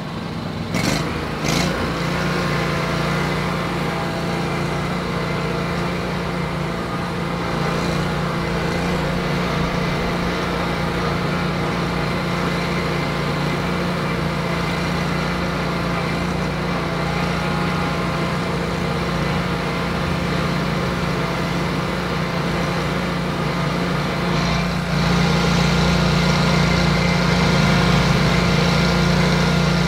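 Wright Stander LG stand-on commercial mower's engine running steadily under the rider, after a couple of knocks near the start; it gets louder about 25 seconds in.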